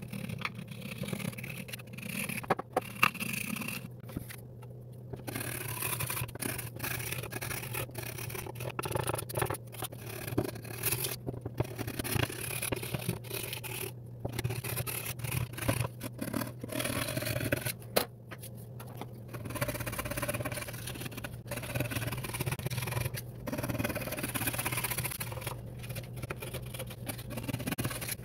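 A knife blade scraped in repeated short strokes along a wooden Lee Enfield rifle stock, shaving off cosmoline-soaked old finish, over a steady low hum.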